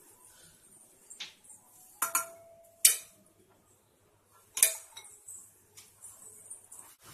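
A few sharp clinks of a steel plate knocking against a glass mixing bowl as chopped ingredients are tipped in. The loudest comes about three seconds in, and one leaves a brief metallic ring.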